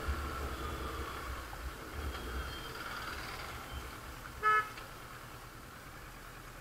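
Low motorcycle riding rumble that grows quieter, with one short vehicle horn toot about four and a half seconds in.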